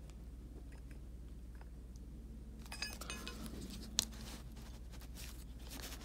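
Faint clicks and light rattles of an unpowered oscillating multi-tool and its blade being handled, with a small run of clicks about three seconds in and one sharp click about a second later.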